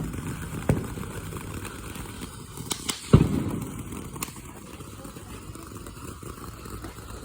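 Firecrackers popping: several sharp bangs, with a quick cluster about three seconds in that includes the loudest one.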